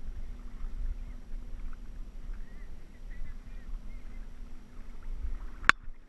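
Low rumble of moving water and wind on a camera microphone while wading in a river, with one sharp knock near the end.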